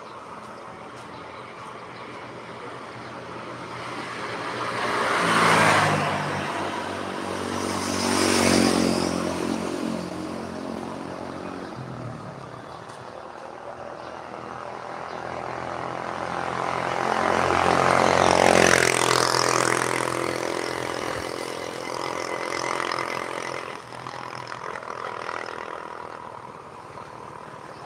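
Road traffic: motor vehicles passing close by over a steady background hum, with the loudest passes about 6, 9 and 19 seconds in, each building up and fading away.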